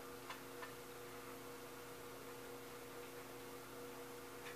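Faint steady electrical hum of room tone, with a couple of faint ticks in the first second and another near the end.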